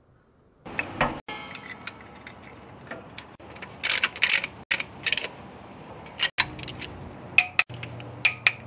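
Irregular metallic clicks and clinks of hand tools on engine fittings, starting about a second in, with a socket ratchet clicking near the end.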